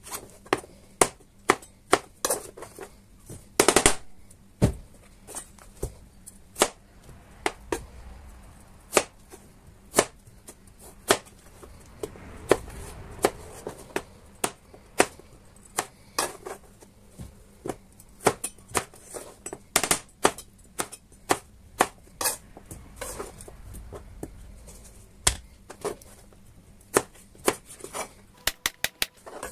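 Chef's knife cutting raw peeled potatoes on a plastic cutting board: sharp, irregular knocks of the blade striking the board, about one to two a second, with a quick run of several near the end.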